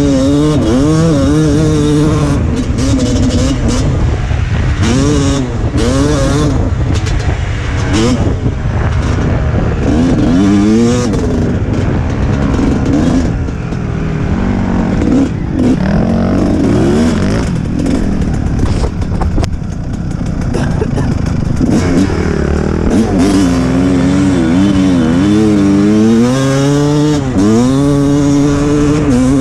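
Dirt bike engine revving up and dropping back again and again while riding a trail, with wind noise over the microphone.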